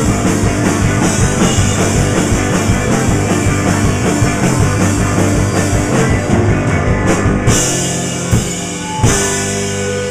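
Live rock band playing loud: electric guitar and fast drumming, which stop about seven and a half seconds in, leaving held chords and two last hard hits that ring out as the song ends.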